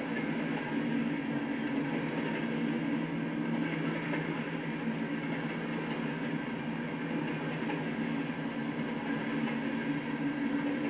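Freight train rolling past, a steady rumble of rail noise with a low, even hum underneath.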